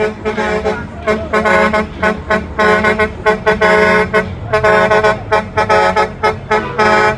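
Semi truck's air horn blown over and over in a fast, uneven run of short toots and longer blasts, loud and steady in pitch.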